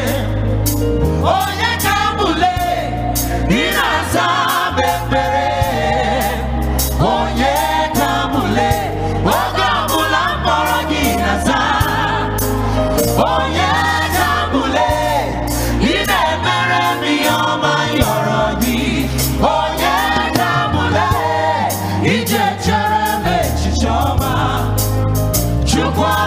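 Live gospel worship music: a lead singer and backing vocalists singing over a band with steady bass and a regular drum beat.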